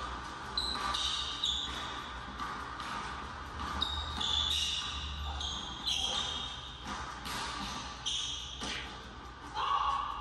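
A basketball being dribbled on a hardwood gym floor, with repeated bounces. Short high squeaks of sneakers on the court come in among them as the players move.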